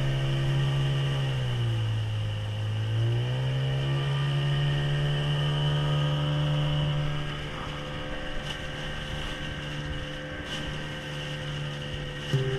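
Boat motor running steadily. Its pitch drops briefly about two seconds in as the throttle eases, then comes back up, and it runs a little quieter over the second half.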